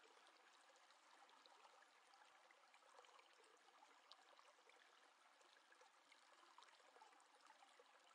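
Near silence: faint steady room hiss with a few tiny scattered ticks.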